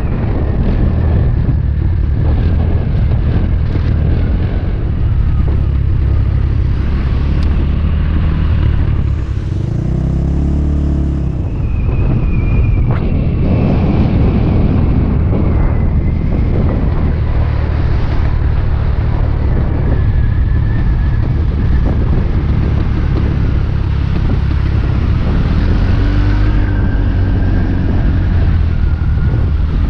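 Motor scooter on the move: a steady low rumble of engine and wind buffeting the microphone. About ten seconds in, a pitched engine note briefly rises and falls.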